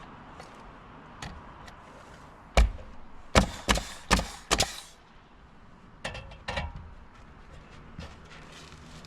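Hammer blows: one hard strike, then four quick strikes in just over a second, and two lighter ones a moment later.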